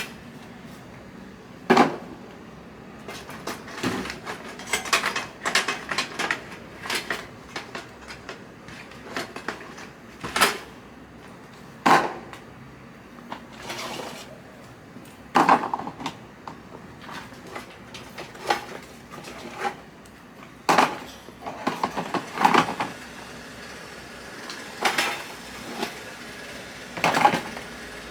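Scrap metal items being handled and loaded: irregular metallic clanks and knocks, some in quick clusters.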